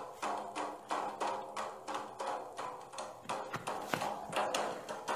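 Instrumental music accompanying Banjar syair singing: a steady knocking percussion beat, about three strikes a second, over held pitched tones.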